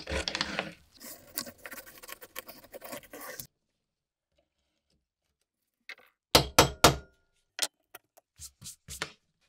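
Scratchy rubbing and small clicks as the broken wooden handle of an antique pruning saw is handled and traced around on paper, cutting off suddenly after about three and a half seconds. After a silent gap comes a quick run of loud, sharp wooden clicks and knocks, then a few lighter taps.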